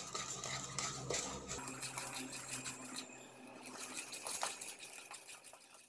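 Hand whisk beating a thick milk, sugar and milk-powder batter in a kadhai, with many light clicks and scrapes of the whisk against the pan as the lumps are broken up.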